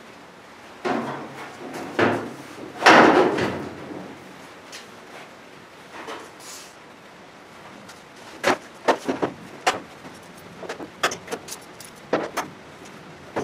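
Steel replacement quarter panel being handled and worked onto a car body shell: sheet metal scraping and flexing in a few surges, the loudest about three seconds in. Later come a series of sharp metal knocks and taps as it is pushed into place.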